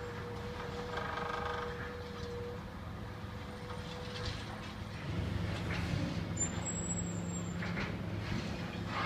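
Diesel engines of hydraulic excavators running on a demolition site, a steady low drone that grows louder from about five seconds in as a machine works harder, with a few faint knocks of debris. A faint steady whine sounds for the first couple of seconds.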